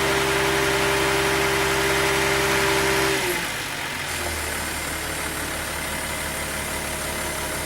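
Truck-mounted crane running with a steady engine drone and whine. About three seconds in the whine stops and the engine drops to a lower, quieter idle, as the boom's movement ends.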